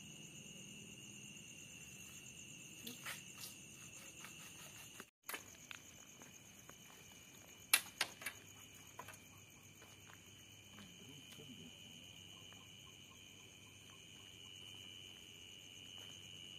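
Night chorus of crickets: a steady, high, even trilling. A few sharp clicks sound over it, the loudest cluster about eight seconds in, and the sound drops out for a moment about five seconds in.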